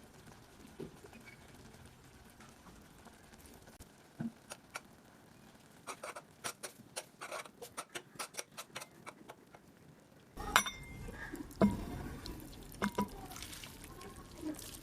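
Kitchen utensils tapping and clinking against dishes: a run of quick light taps midway, then a few louder knocks.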